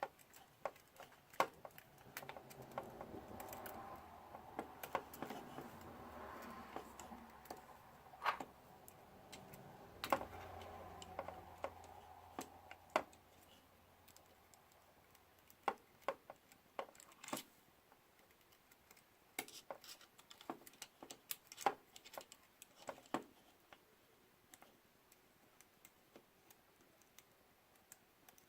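Scattered light clicks and taps of small parts and tools being handled on a bench, with a few sharper clicks among them and a faint low hum in the first half.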